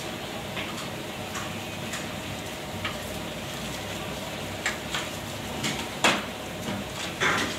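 Metal scraper knocking and scraping on a hinged wire grill basket of grilled fish, with scattered clicks that come faster toward the end. A sharp metal clank about six seconds in as the basket is swung open, and a louder clatter near the end, over a steady background hum.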